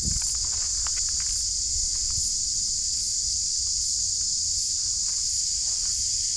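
Steady, high-pitched insect chorus droning without a break, with a few light clicks and rustles in the first second or so.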